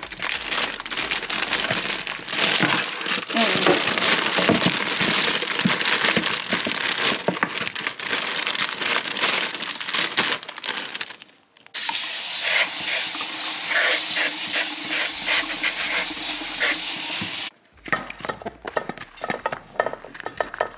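Broccoli florets rinsed under running tap water in a plastic colander, the water hissing and the florets rattling. After a break comes a very even, steady hiss, and near the end a run of light knocks as florets drop into a glass baking dish.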